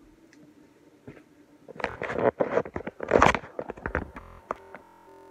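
Handling noise: a dense burst of crinkling, crunching clicks starting about two seconds in, dying away after about two seconds.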